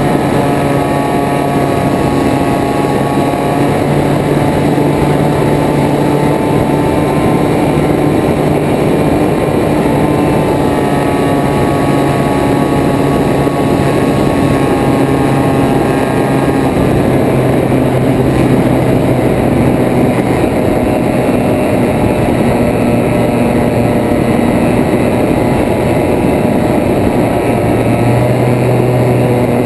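Propeller plane's engine running steadily in flight, heard from a wing-mounted camera with heavy wind rush over it. The engine note drifts a little lower past the middle and picks up again near the end.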